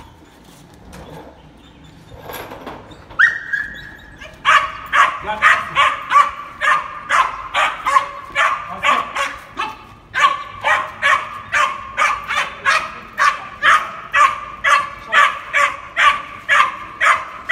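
Puppy barking rapidly and repeatedly, two to three sharp barks a second, starting about four seconds in after a brief whine, with a short break about ten seconds in. It is barking in excitement at a burlap bite rag teased in front of it during bite training.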